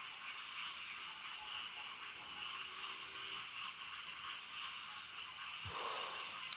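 Crickets and other insects trilling steadily, with a run of evenly spaced chirps partway through. A short low thump sounds once near the end.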